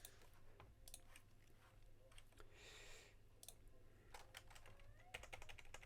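Faint clicking of typing on a computer keyboard, a few scattered keystrokes and then a quick run of them near the end.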